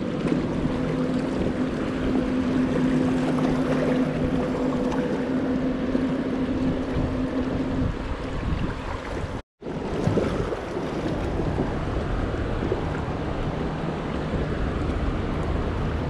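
Rushing whitewater of a small river rapid around an inflatable kayak, with wind buffeting the microphone. A steady low hum runs under it for the first half, and the sound drops out for a moment about halfway through.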